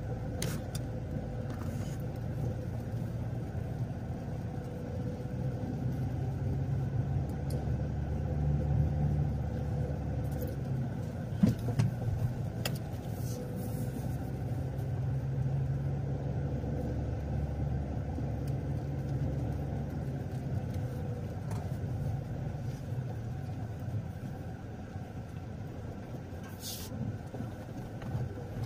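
A car driving, heard as a steady low engine and road rumble that swells and eases gently. A few short clicks sound through it, the loudest a sharp knock about eleven seconds in.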